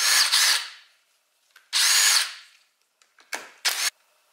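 Cordless impact driver run in two short bursts of about half a second each, spinning out the clutch pressure-plate spring bolts on a motorcycle's clutch. Two shorter bursts follow near the end.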